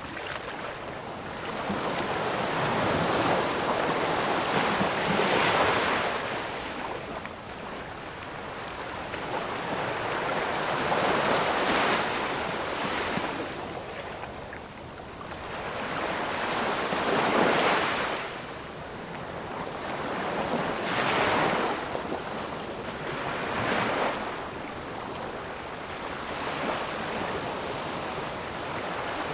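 Ocean waves breaking and washing on a shore, swelling and fading about every five to six seconds.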